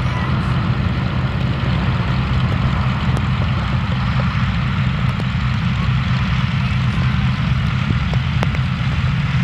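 North American Harvard's nine-cylinder Pratt & Whitney R-1340 radial engine running throttled back as the plane lands and rolls out, a steady low rumble with a rapid, uneven beat.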